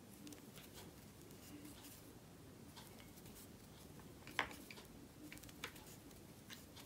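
Near silence with faint ticks and soft rustles of a fine steel crochet hook working mercerized cotton thread, with a sharper click about four and a half seconds in.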